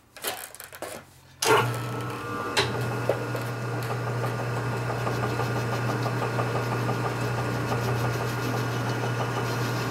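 Metal lathe switched on about a second and a half in, then running steadily with a low hum from its motor and spinning chuck. A few light clicks of hand work at the carriage come before it starts.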